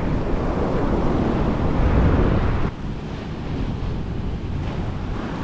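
Wind buffeting the microphone over breaking ocean surf. The wind rumble is heaviest in the first half and drops off suddenly a little over halfway through, leaving the surf wash steadier.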